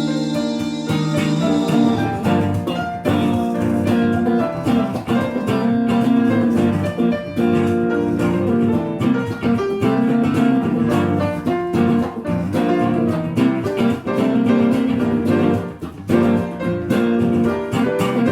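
Live band playing an instrumental passage led by guitar, with no singing.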